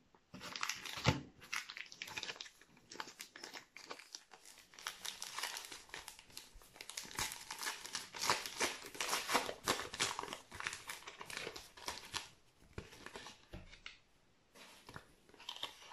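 A Topps Match Attax trading-card pack's wrapper being torn open and crinkled by hand, a dense run of crackling rustles that thins out near the end.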